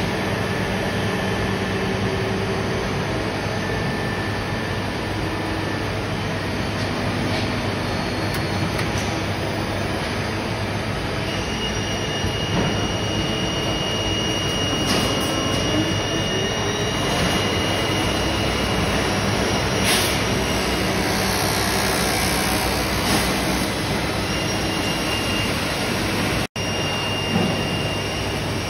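STAR SST-16 CNC sliding-headstock lathe running a machining cycle: a steady machine drone, with a high whine that comes in about a third of the way through and comes and goes after that. The sound cuts out for an instant near the end.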